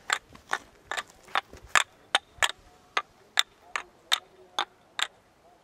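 Wooden kendama being played: the ball clacking sharply into the wooden cups again and again in a steady rhythm, about two to three clacks a second.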